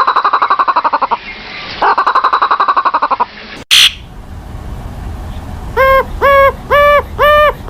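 Bird calls: two rapid, rattling trills of about a second and a half each. After a short break comes a run of clear, pitched calls repeated about twice a second, each note rising and falling slightly.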